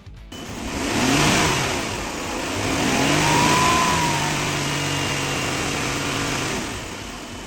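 2013 Jeep Wrangler engine running and being revved twice, rising and falling, then held at raised revs before easing off. The revving pushes coolant through the system after a thermostat replacement, to purge air bubbles out through the filler funnel.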